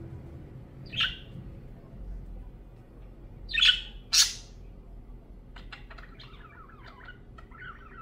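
Budgerigar calling: one sharp call about a second in, two loud calls close together near the middle, then a run of quick, chattering warble chirps in the second half.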